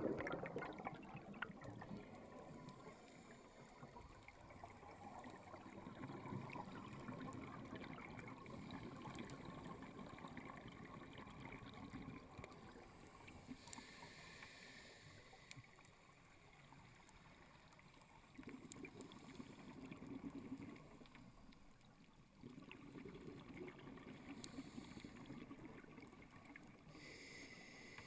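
Scuba diver breathing through a regulator underwater. There is a hissing inhale about halfway through and again near the end, and stretches of low, rushing exhaled bubbles in between.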